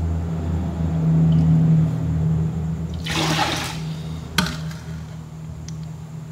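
Water being scooped with a stainless steel bowl from a basin of soaking sliced bamboo shoots, bailing off the soaking water. It sloshes, with a loud splash of poured water about three seconds in and a sharp clink of the metal bowl a second later, over a steady low hum.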